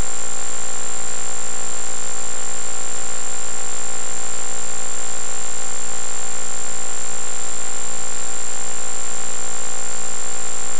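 Steady electronic hum and hiss from a cheap camera: a constant high whine over lower droning tones, unchanging throughout.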